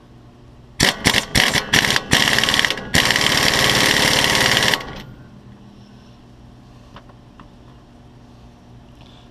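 Pneumatic impact wrench running down the steering stabilizer's mounting nut: a handful of short trigger blips, then two longer bursts of rapid hammering that cut off just under five seconds in.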